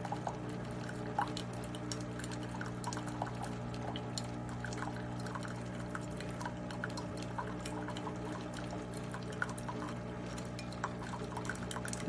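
Cuisinart SS-10P1 single-serve coffee maker brewing: a steady hum from the machine with liquid trickling and dripping through it.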